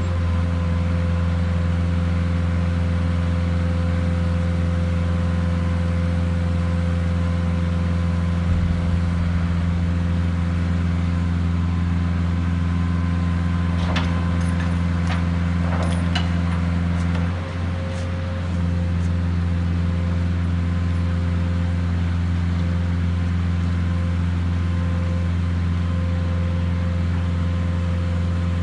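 Engine running steadily to power the hydraulic crane arms of a Megalift side-loading trailer as they lower a shipping container. Several sharp metallic clinks come about halfway through, and the engine note dips briefly a little after.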